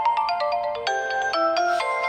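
Huawei Nova 7i ringtone playing: a quick melody of short, overlapping pitched notes.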